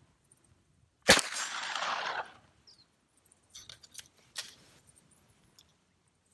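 A single shot from a MAS-38 submachine gun firing 7.65 French Long ammunition, about a second in, with an echo trailing off for just over a second. A few faint clicks of the gun being handled follow a couple of seconds later.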